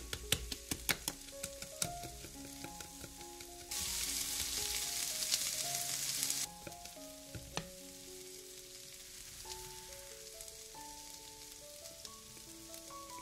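A wire whisk clicking against a glass bowl as a thick batter is beaten, then about three seconds of sliced onions and carrots sizzling in a frying pan, which stops abruptly. Soft background music with held notes throughout.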